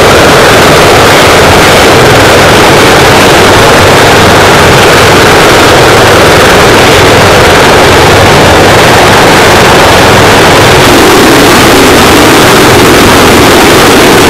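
CH-53 heavy-lift helicopter running on the ground with its rotors turning: loud, steady turbine and rotor noise.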